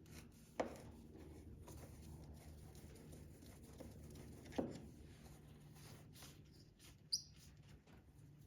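Quiet hand work with three brief squeaks: two that drop quickly in pitch, about half a second in and again past the middle, and a short high-pitched chirp near the end, over a low steady hum.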